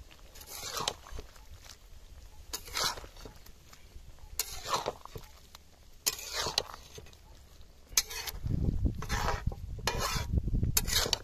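Flat metal spatula scraping and stirring a thick curry in a metal kadai, one stroke every second or two, coming faster near the end. A low rumble comes in about eight seconds in.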